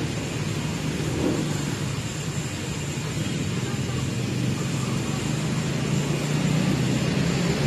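Steady hum of city road traffic.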